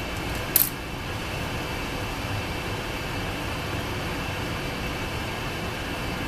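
Steady rushing noise of a basement furnace running, with a single sharp metallic click from the lock pick working the pins of a Master Lock 410 padlock about half a second in.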